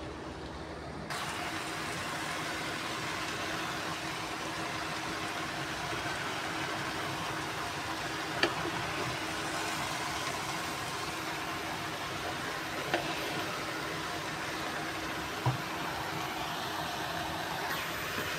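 Steady hiss of chopped papaya leaves and tempeh stir-frying in a nonstick pan over a low steady hum, a little louder from about a second in. A few short knocks of the wooden spatula against the pan come through.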